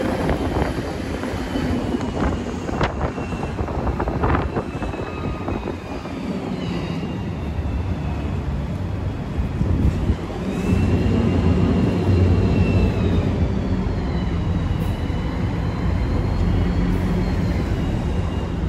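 Tour bus driving: engine and road rumble that grows louder about ten seconds in, with a high whine that glides up and down in pitch and a few sharp knocks in the first few seconds.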